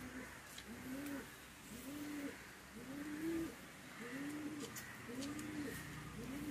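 A dove cooing: a steady run of low, arched coos, about three every two seconds.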